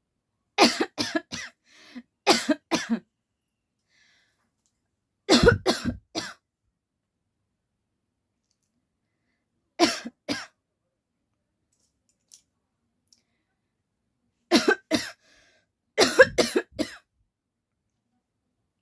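A woman coughing in five short fits of two to four coughs each, with silent pauses of a few seconds between them. These are put-on coughs for a coughing challenge.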